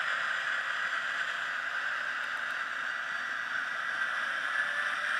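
Sound decoder in an N gauge Graham Farish Class 70 model diesel playing a recorded Class 70 engine sound through a tiny microcube speaker as the model runs. It is a steady engine drone, thin, with no bass.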